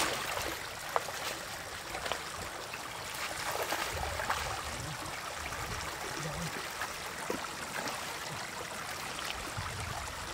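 Shallow floodwater splashing and trickling as hands grab at catfish in it, with sharp splashes right at the start and again about a second in, then steady lapping and dribbling of water.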